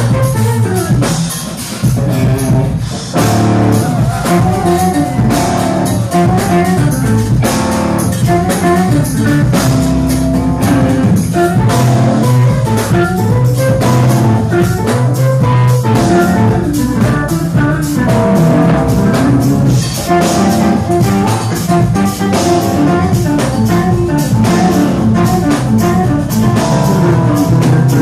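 Live jazz-fusion band playing: drum kit and electric guitar over a full band.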